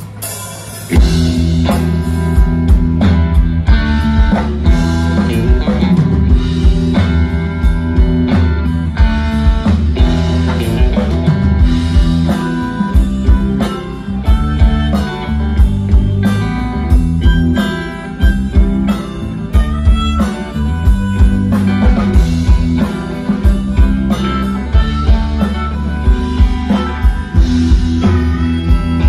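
Live band playing an instrumental intro through a PA: electric guitar, bass and drum kit with a steady beat, and a harmonica at the microphone. The band comes in about a second in.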